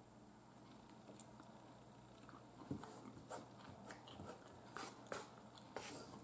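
Near silence at first, then quiet eating sounds from about three seconds in: chewing, with scattered sharp clicks of a fork working against the plate.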